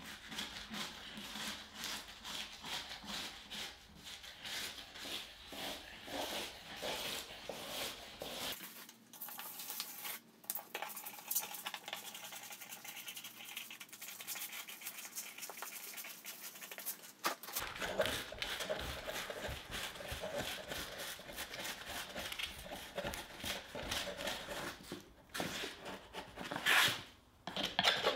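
Rapid, irregular scratching and scraping strokes of hand work at a plywood wall and board ceiling, with small clinks. For a stretch in the middle the sound turns thinner, with no low end.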